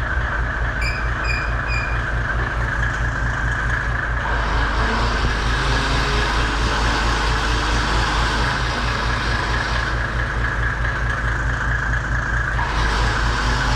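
Electric winch motor whirring under load in two runs, from about four seconds in to about ten, then starting again near the end. Underneath is a steady idling engine hum, and a few short high beeps come about a second in.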